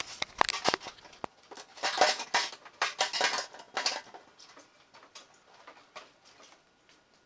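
Knocks, clatter and scraping of a sheet-aluminium fuel tank being shifted and pressed into place against the aluminium tube frame of an ultralight's fuselage. The noise is busiest in the first four seconds and thins to a few light taps.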